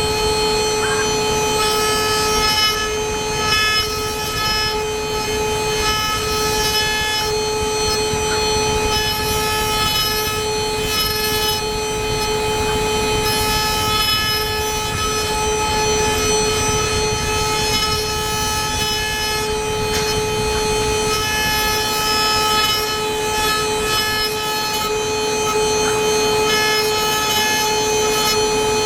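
Four-axis CNC milling machine cutting: a steady spindle whine with a stack of high tones over constant cutting noise, dipping briefly now and then.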